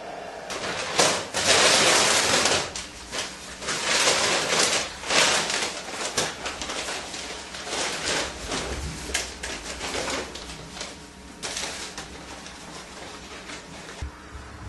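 Stalosan powder being poured from its sack into a STIHL backpack sprayer's tank, with the sack rustling: a rushing hiss in irregular surges that dies down about three quarters of the way through.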